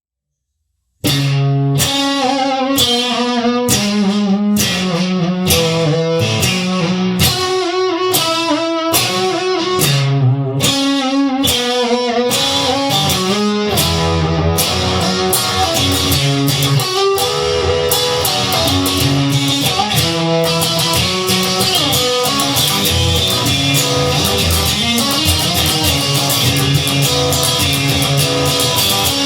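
Instrumental song intro on guitar: chords struck in a steady rhythm starting about a second in, the playing turning fuller and continuous, with bass underneath, from about halfway on.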